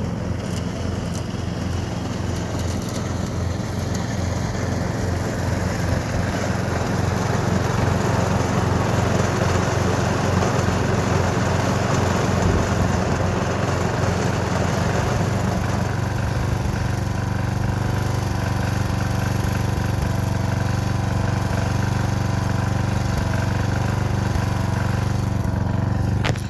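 Bunton walk-behind mower's small gasoline engine running steadily under load while mowing grass, freshly fitted as a new engine with a new carburetor.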